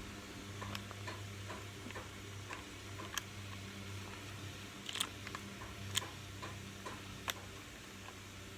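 Scattered plastic clicks and taps of ring-light parts being handled and pushed together, with three sharper clicks in the second half, over a steady low hum.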